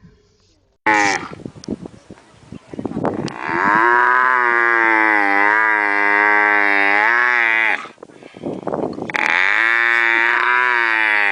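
Camel bellowing: a sudden burst of rough grunts, then a long wavering call lasting about four seconds, and after a short break a second long call.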